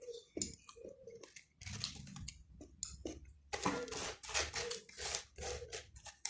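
A person chewing and eating cheese ramen with kimchi and fried chicken, making irregular wet clicks and smacking mouth sounds that come thickest about halfway through.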